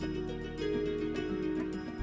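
Soft instrumental background music: plucked notes over sustained held tones.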